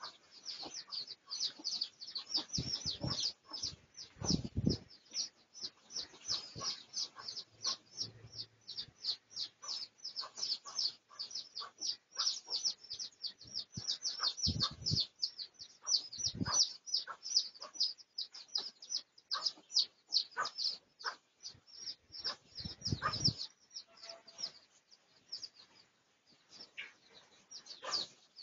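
Birds chirping in a rapid, steady series of short high falling chirps, about three or four a second, with a few dull low thumps scattered through.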